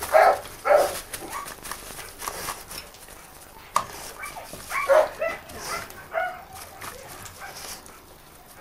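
A terrier working a rat's hiding place, giving short yaps and whines in scattered bursts, busiest at the start and again around five to six seconds in.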